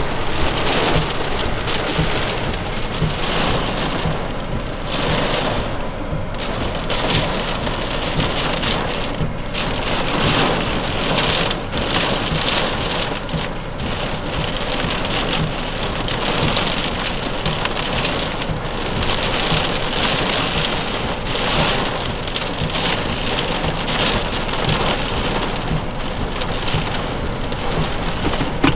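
Heavy thunderstorm rain drumming on a car's roof and windshield, heard from inside the car, swelling and easing in waves.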